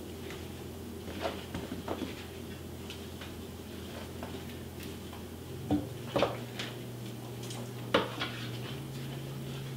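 Fruit pieces being stuffed by hand into the cavity of a raw turkey in a roasting pan: soft handling noises with a few short, light knocks against the pan, over a low steady background hum.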